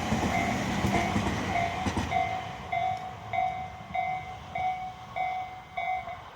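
Electronic Japanese level-crossing alarm ringing at a slow tempo, roughly one and a half dings a second. A passing train's wheels clatter under it for the first two seconds, then fade, and the alarm stops near the end.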